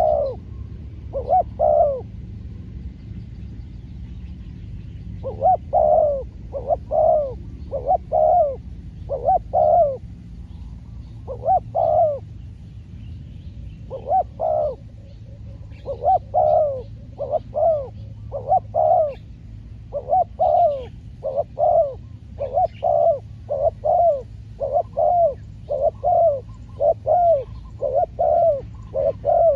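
Spotted doves cooing: a long run of short coos, in spaced groups at first and then in a fast, steady series from about halfway on, with faint chirps of small birds behind.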